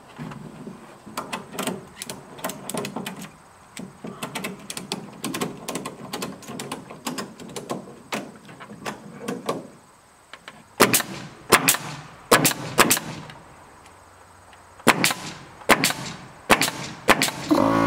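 Wooden siding board knocking and scraping as it is held up and positioned under an eave. Then, in the second half, a pneumatic nail gun fires nails into it in two quick runs of about five sharp shots each.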